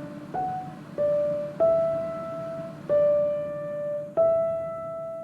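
Background music: a slow melody of single piano notes, five notes struck one at a time, each fading away before the next.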